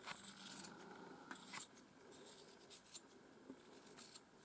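Grooming scissors snipping the hair along the edge of a miniature schnauzer's ear: a handful of quiet, short snips at irregular intervals.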